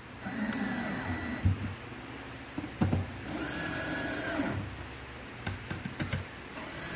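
Electric drill driving screws into solid wood in short runs of about a second, its motor whine rising as it spins up and falling as it stops, with a few sharp knocks between runs.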